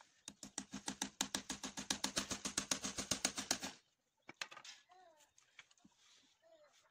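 Rapid, even mechanical clicking, about nine or ten clicks a second over a low hum, which stops suddenly after about three and a half seconds. Later, faint short bird calls.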